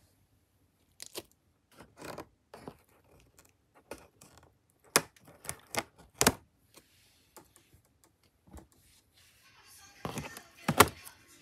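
A plastic packing strap being cut and a cardboard box handled: scattered sharp clicks, snaps and scrapes, the loudest about five seconds in and near the end, with some cardboard rustling just before the end.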